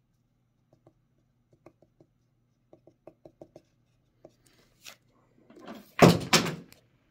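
Small faint clicks and taps of tweezers and fingers handling fusible applique pieces on a Teflon pressing sheet, some in a quick run of about five. Near the end a louder rustle and two sharp knocks about half a second apart.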